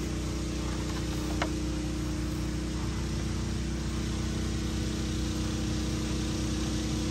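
A small engine running steadily, a constant hum that does not change, with one short click about a second and a half in.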